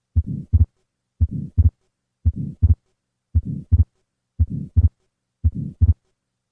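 Heart sounds of an atrial septal defect, repeating about once a second: a first heart sound, a soft systolic murmur, then a split second heart sound whose two parts come close together. The murmur comes from increased flow across the pulmonic valve, and the split is the fixed splitting of the second heart sound, caused by late closure of the pulmonic valve.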